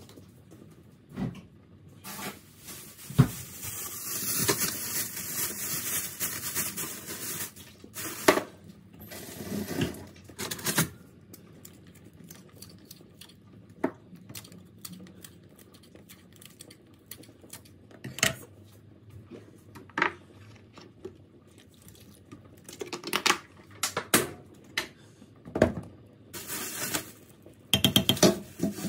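Kitchen clatter: a spoon and utensils clinking and knocking against a stainless steel pot as seasoning and chopped vegetables go in, in scattered single clicks with denser bursts of clatter.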